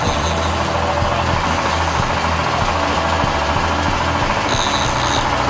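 A boat's engine running steadily with a low hum and a rough, rattling texture.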